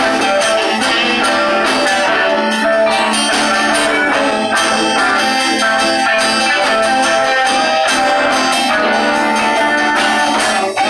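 A live band playing loud, steady music: guitars and drums with a saxophone.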